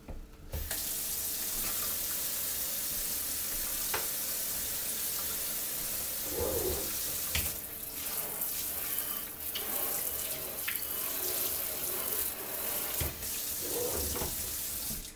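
Water running from a kitchen faucet into a stainless-steel sink basin as a steady rush, turned on about half a second in. A few knocks and clunks of handling at the sink come over it.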